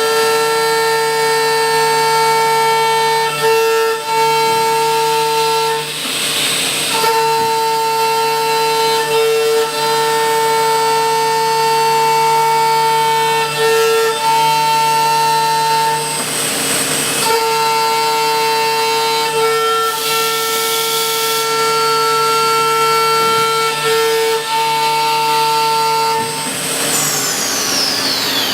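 Akira Seiki SR3XP CNC machining centre's spindle running at high speed while milling: a steady high whine with overtones, broken a few times by short bursts of hiss. Near the end the whine falls steeply in pitch as the spindle winds down.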